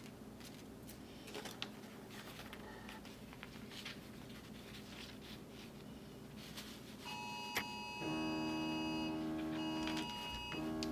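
Faint rustling and light taps of printed paper sheets being laid out and smoothed by hand on carpet. About seven seconds in, soft sustained organ-like keyboard chords come in and are held, with brief breaks.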